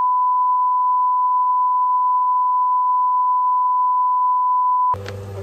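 The steady test-tone beep of a TV colour-bars screen, one unbroken high tone that cuts off suddenly near the end, giving way to room noise with a low hum.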